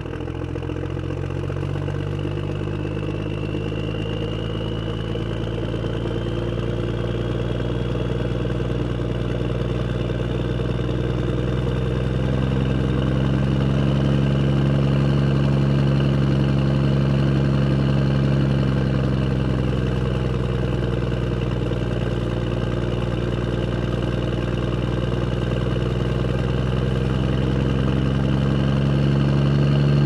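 A motor vehicle engine running at low revs. Its pitch rises a little through the middle and again near the end as the engine speeds up, and the sound grows gradually louder.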